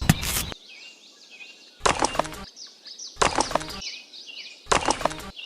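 Four short bursts of rapid clicking and clattering, about a second and a half apart, over faint birds chirping.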